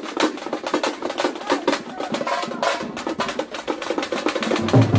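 A group of thamate frame drums beaten with sticks together in a fast, dense, loud rhythm.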